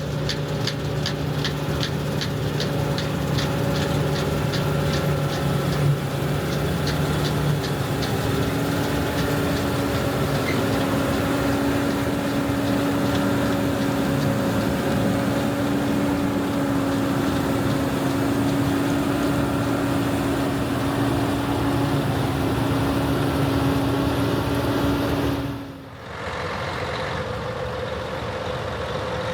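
Large diesel harvest machinery running steadily under load, with a rapid ticking, about three ticks a second, for the first several seconds. About three-quarters of the way through the sound breaks off and changes to another steady engine note.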